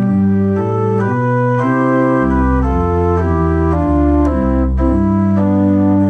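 Church organ playing slow sustained chords that change about once a second, with deep bass notes coming in about two seconds in.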